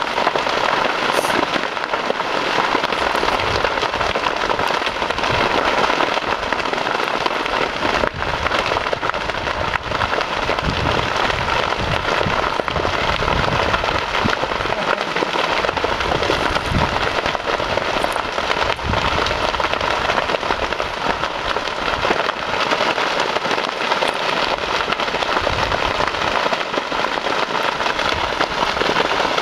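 Steady, dense crackling and popping of a large brush fire burning through dry grass, bamboo and cedar trees.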